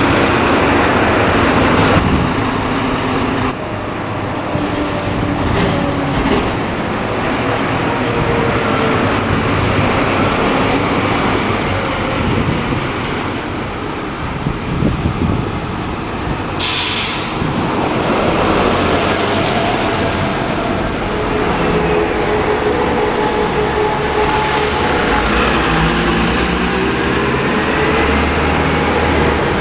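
Buses running in city street traffic, with a short hiss of air brakes about 17 seconds in and another, fainter one near 25 seconds.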